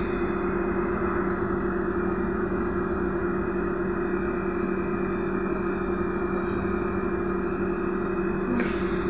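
Inside a BKM-321 trolleybus standing still: a steady two-tone electric hum from its onboard equipment over a low rumble of the vehicle and street traffic, with a brief sharp hiss near the end.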